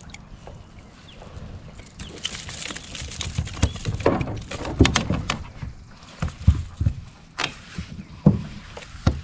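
Irregular knocks and thumps on a plastic kayak, with rustling, as a caught trout is landed and handled on the deck.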